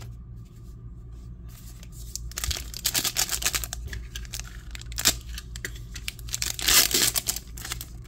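Foil wrapper of a Topps trading-card pack crinkling in the hands and being torn open, starting about two and a half seconds in and loudest shortly before the end, with a sharp crackle near the middle.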